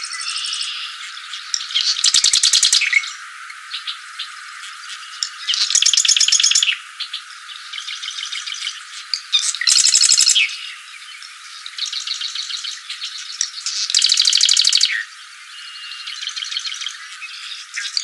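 Marsh wren singing: a song phrase repeats about every four seconds, four times. Each phrase is a few scratchy notes followed by a fast, dry, rattling trill about a second long.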